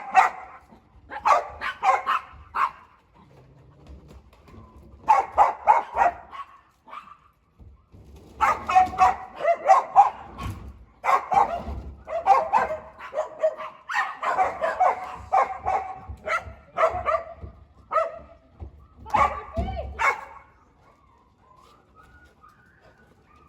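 A dog barking in quick runs of short barks, in several bouts with short pauses, stopping near the end.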